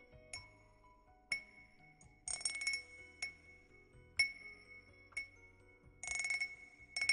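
A glass cup tapped in a steady rhythm, about once a second, each strike ringing with a clear bell-like tone. Twice, about two seconds in and again near six seconds, the tapping turns into a brief burst of rapid wind-chime jingling.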